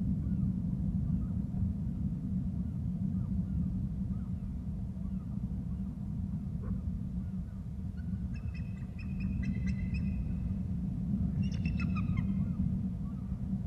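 A bird calling in two short runs of high, piping notes, about 8 s in and again about 11.5 s in, over a steady low rumble.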